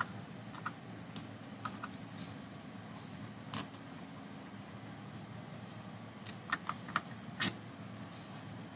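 Scattered light metallic clicks and clinks as the starter motor's Bendix drive pinion and shaft are handled and fitted together, with a sharper click about three and a half seconds in and a quick run of clicks near the end, over a steady low hum.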